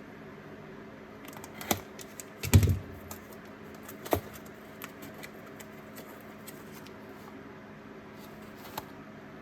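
Scattered clicks and taps of a socket set's box being handled and opened, with one louder thump about two and a half seconds in.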